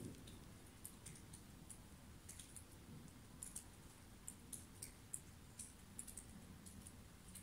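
Near silence, with faint, irregular high-pitched ticks a couple of times a second.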